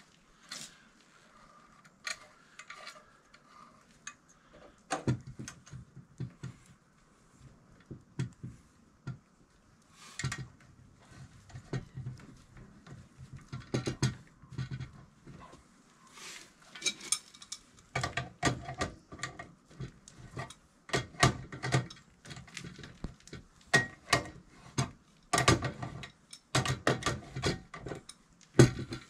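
Metal conduit, fittings and an electrical box clinking and knocking as they are fitted together and tightened by hand: irregular clicks and clanks, more frequent in the second half.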